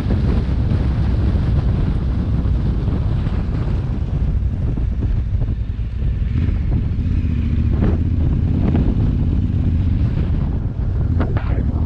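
Wind buffeting the microphone of a helmet-mounted camera as a steady low rumble, with a motorcycle engine running faintly underneath. A few sharp clicks come near the end.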